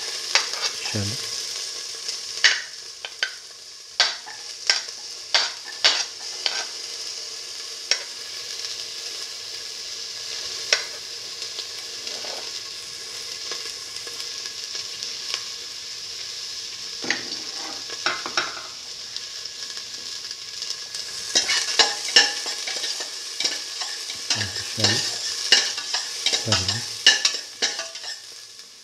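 Chopped shallots frying in hot oil in a stainless steel pan, with a steady sizzle and frequent sharp pops and crackles. From about three-quarters of the way through, a metal spoon stirs and scrapes them against the pan, with denser clicks and a few low knocks.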